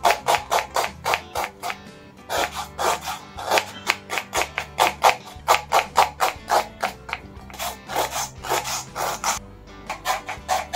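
Knife chopping red onions on a wooden cutting board: quick taps, about four or five a second, with a short break about two seconds in and another near the end. Background music plays underneath.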